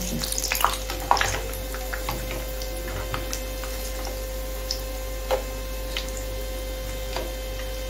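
Breaded chicken cheese bread rolls shallow-frying in hot oil: a steady sizzle with scattered crackles and pops. Metal tongs click against the pan several times in the first second or so. A steady faint hum runs underneath.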